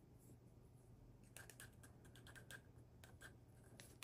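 Near silence with faint scratching and light ticks from hands handling small clear plastic drill containers and a sheet of label stickers.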